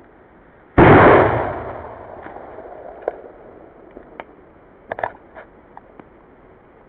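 A small flash-powder charge (potassium perchlorate and aluminium) exploding: one sharp, very loud bang about a second in, played back at half speed so it sounds deep and drawn out, with a long fading rumble after it. A handful of faint sharp clicks follow over the next few seconds.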